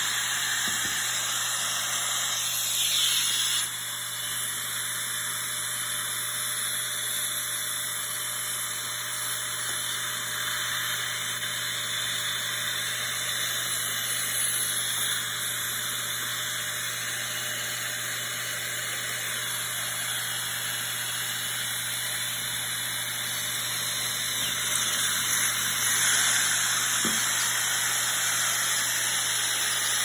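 Shop dust extractor running, its suction hissing steadily through the extraction hose and drilling jig over a low steady hum. The hiss swells briefly about three seconds in and again near the end.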